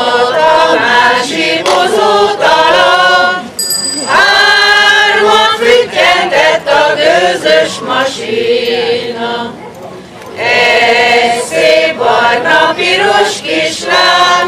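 A mixed group of men and women singing a Hungarian folk song together, in long sung phrases with short breaks for breath about three and a half seconds in and again about ten seconds in.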